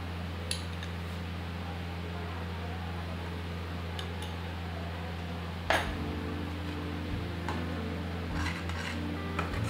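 Metal slotted spoon clinking against a pan and scraping through thick coconut and sugar-syrup mixture as it is stirred, with one sharper knock a little past halfway, over a steady low hum.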